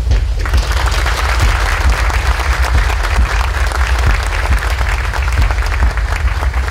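Audience applauding, beginning about half a second in, over a deep steady rumble.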